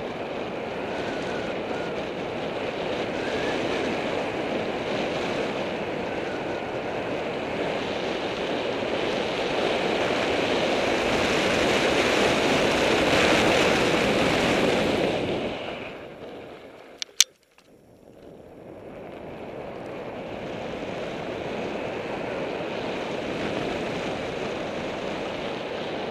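Wind rushing over a bike-mounted action camera's microphone, mixed with tyre and trail noise from a mountain bike riding dirt singletrack. It swells, then falls away to almost nothing about two-thirds of the way through, with a couple of sharp clicks in the lull, before building again.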